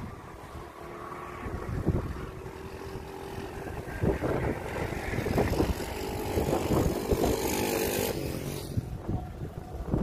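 Strong wind buffeting the microphone in uneven gusts, with a small engine droning nearby. The engine gets louder in the second half and stops about eight and a half seconds in.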